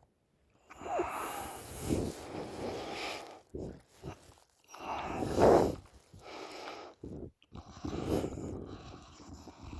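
A woman snoring through an open mouth: three long, rough breaths, the loudest one about halfway through.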